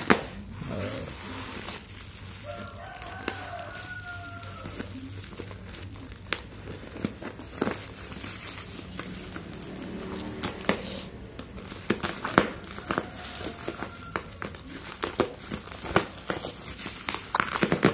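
Plastic bubble wrap crinkling and crackling as it is handled and cut through with scissors, with many scattered sharp crackles.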